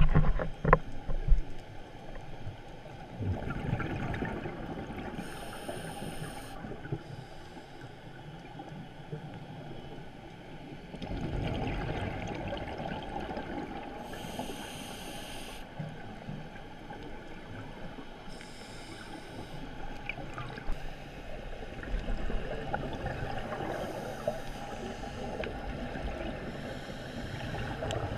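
Scuba diver breathing through a regulator underwater, heard through the camera housing: a hiss on each inhale alternating with a rush of exhaled bubbles, a few breaths over the stretch. A few sharp knocks sound in the first second or so.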